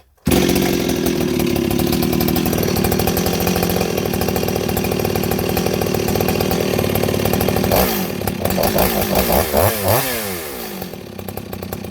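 Stihl 026 two-stroke chainsaw running steadily after being started with the decompression valve. From about eight seconds in it is revved up and down several times, then settles lower near the end. The saw has just been rebuilt after a scored piston and runs cleanly, which the owner takes for a successful repair.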